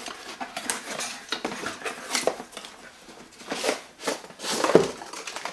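Cardboard box being opened and a metal briefcase barbecue slid out of it: irregular rustling, scraping and light knocks of cardboard, louder in the last couple of seconds.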